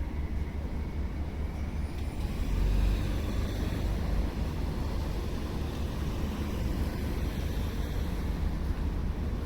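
Street traffic noise: a steady low rumble of passing road vehicles, swelling briefly about two and a half seconds in.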